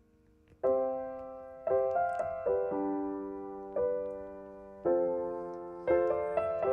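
Background music: slow piano chords, struck about once a second and left to ring and fade.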